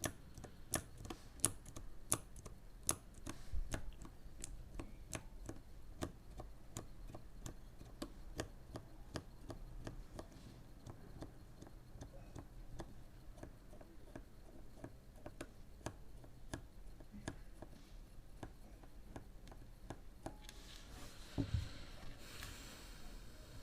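Mechanical keyboard switches on a switch tester being pressed one after another: a steady run of sharp clicks, about two to three a second, louder for the first few seconds and softer after. A thump and a brief rustle come near the end.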